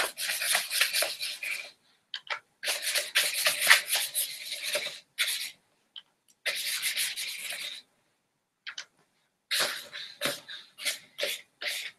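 Thick paintbrush scrubbing watercolor onto a paper journal page, in several runs of strokes with pauses between. Near the end the strokes come shorter and quicker.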